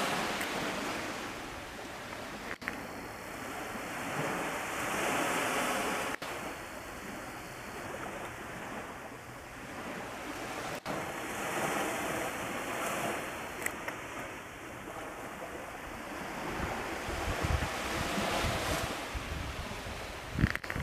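Small sea waves washing onto a beach, the noise swelling and fading every few seconds, with wind buffeting the microphone near the end.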